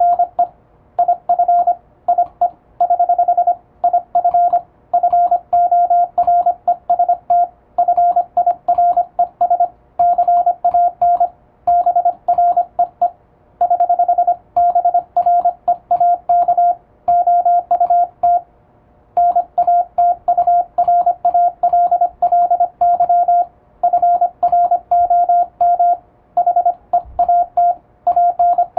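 Morse code sent at high speed with an electronic keyer: a single steady mid-pitched beep keyed on and off in rapid dots and dashes, with short breaks between words and a couple of longer pauses.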